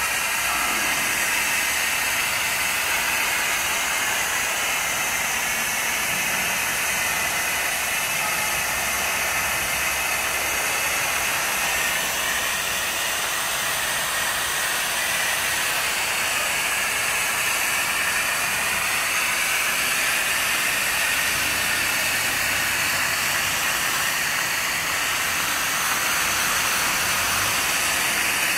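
Hose-fed spray nozzle on a metal lance hissing steadily as it throws a fine mist of water over plant trays.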